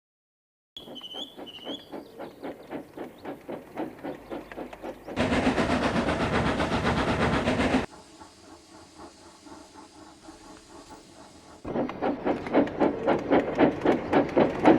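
Steam locomotive running, a rhythmic chuff and rail clatter at about four beats a second, starting abruptly and stepping louder and quieter several times. There are two short high bird chirps near the start.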